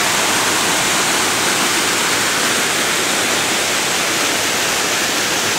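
Small creek waterfall, water pouring steadily over rock in a loud, even rush.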